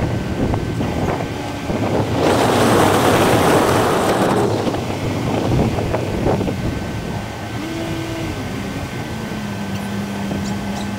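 Car driving, heard as a steady rush of road and engine noise with wind buffeting the microphone. About two seconds in, the rush swells louder for a couple of seconds before settling back.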